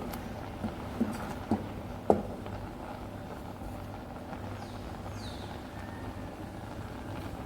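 A stirring spoon knocking against a cooking pot five times in the first two seconds, over a steady low hum.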